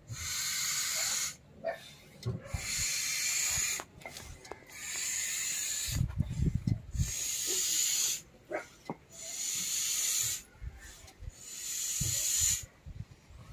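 Hand air pump hissing in repeated strokes: about six hisses of one to two seconds each with short pauses between, and a few low thuds near the middle.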